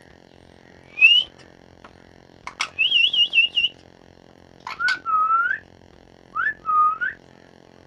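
Pet parrot whistling: one rising note, then a quick warbling trill, then two swooping whistled notes, with sharp clicks just before them.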